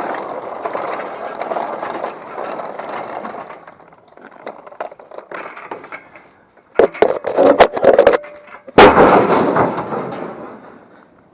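Scrap metal being dragged and handled, then several sharp metallic clanks with a ringing note and one loud crash of metal landing, its rattle dying away over a couple of seconds.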